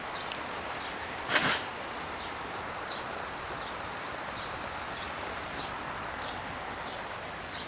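Steady hiss of heavy rain falling, with one brief loud rushing burst about a second and a half in.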